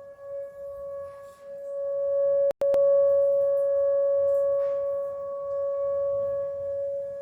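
Outdoor tornado warning siren sounding one steady tone. It swells louder about two seconds in, then eases off and comes back, with a split-second gap in the sound about two and a half seconds in.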